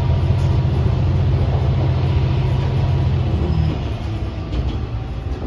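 Underfloor diesel engine of a KiHa 120 railcar pulling away under power, heard inside the passenger cabin as a deep steady drone. A little past three seconds in it eases off and drops to a quieter running rumble.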